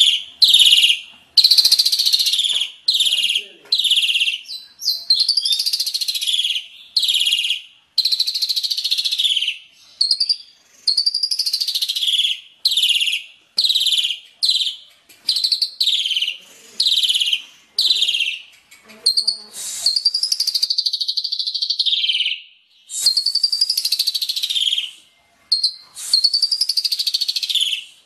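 A songbird repeats harsh, rough, high-pitched phrases in quick succession, about one or two a second with short breaks between them. A couple of longer rolling phrases come in the second half. This is the rough, shot-like (kasaran, tembakan) masteran song used to tutor caged songbirds.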